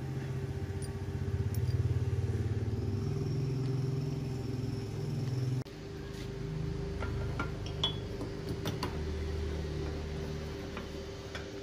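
Low engine rumble of a motor vehicle, its pitch wandering, with a steady hum underneath; it breaks off abruptly about halfway through. Several light metallic clicks follow as a threaded steel rod is handled and set between bench-vise jaws.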